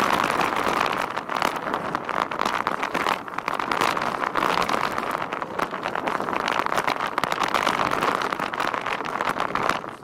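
Mountain bike rolling fast over a loose dirt and gravel trail: steady tyre noise on the ground, with frequent clicks and knocks as the bike rattles over the bumps.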